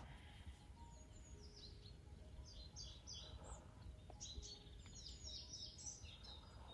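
Faint songbirds chirping in quick, high-pitched phrases over a low rumble of outdoor background noise.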